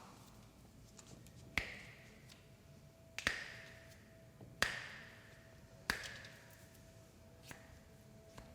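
Sharp slaps of a hand in a percussive massage: four strikes spaced evenly, a little over a second apart, each with a short ringing tail.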